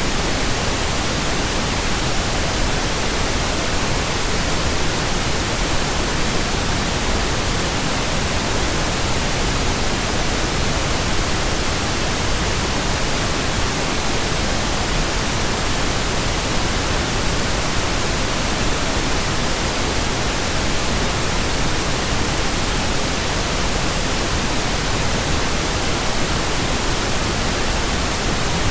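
Generated pink noise: a steady, unchanging hiss spread evenly across all pitches.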